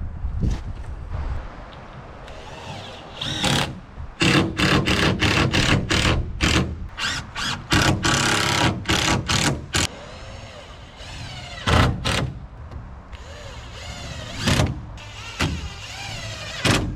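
Hammering on wooden boards: a quick run of sharp blows, about two or three a second, from about three and a half to ten seconds in, then a few single knocks.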